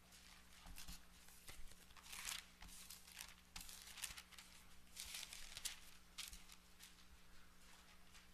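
Faint rustling of thin Bible pages being flipped through, a string of brief, irregular crinkles and swishes as the pages turn.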